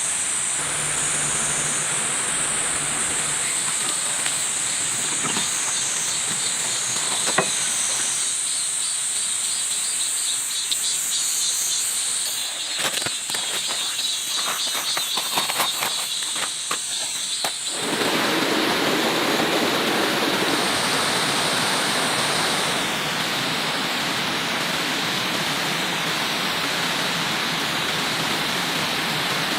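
Night insects chirring steadily in a high-pitched band, with a few scattered clicks. About two-thirds of the way through, the sound cuts abruptly to a steady, even hiss.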